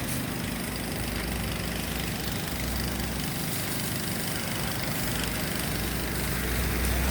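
A motor engine running steadily, a low rumble under a broad hiss of street noise.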